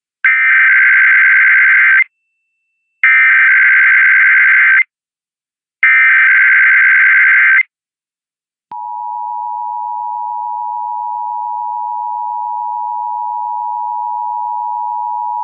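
Emergency Alert System SAME header: three data-tone bursts of about two seconds each, about a second apart, then a steady two-tone EAS attention signal that starts about a second later and holds on. Together they mark the start of a coordinated monthly test alert.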